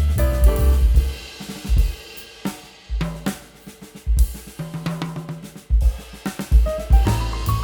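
Background music with drums and cymbals over a heavy bass line, the bass dropping out briefly a couple of times.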